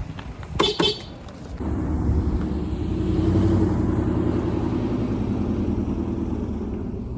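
Car driving after a wheel hub replacement: a steady low engine and road hum that swells a little, with no grinding from the new hub. A few sharp clicks come in the first second, before the hum sets in.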